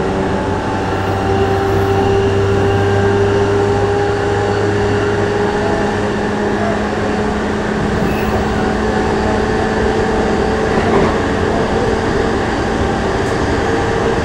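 JR East E233-5000 series electric commuter train running between stations, heard from inside the passenger car: steady running noise with a hum that rises slowly in pitch, and a lower hum that drops out about five seconds in.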